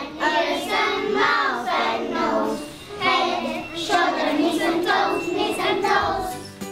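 A group of young children singing together in chorus, their voices gliding up and down, dying away near the end.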